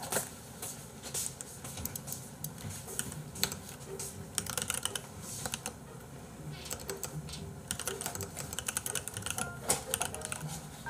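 Typing on a computer keyboard: quick, irregular key clicks in runs with short pauses.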